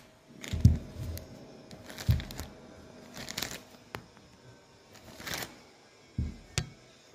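Handling noise: a few dull thumps and knocks with two rustling scrapes between them, as the LED fixture is handled and fitted.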